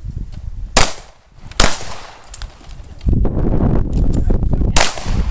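Three pistol shots: two about a second in, close together, and a third near the end. A steady low rumble starts about three seconds in.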